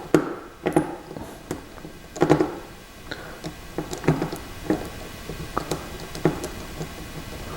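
Light, irregular clicks and taps, about one a second, from small hand tools and tiny parts being handled on a workbench during phone disassembly.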